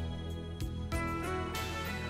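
Background music laid over the video, with held notes that change about once a second.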